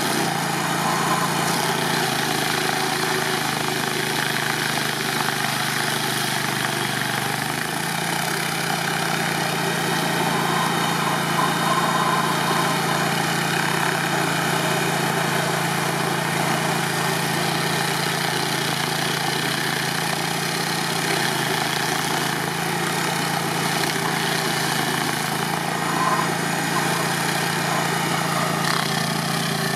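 Engine of a tracked stump grinder running steadily under load while its spinning cutter wheel grinds a tree stump down into chips.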